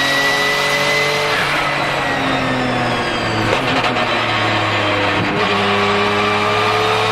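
Porsche 997 GT2 RSR's twin-turbo 3.9-litre flat-six pulling hard with a high turbo whistle rising over the engine note. About a second and a half in it comes off the throttle, and the engine note falls and breaks up with a few sharp cracks through the middle. It then picks up and rises in pitch again near the end.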